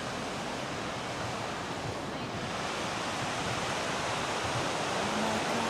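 Gullfoss, the large two-tiered waterfall on the Hvítá river: a steady, heavy rush of falling water, with wind buffeting the microphone.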